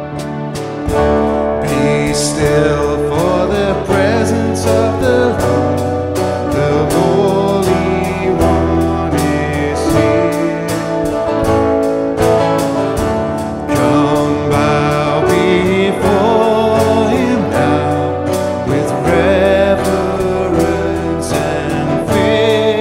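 Acoustic guitar music: chords strummed in a steady rhythm, with a wavering melody line carrying the hymn tune above them from about two seconds in.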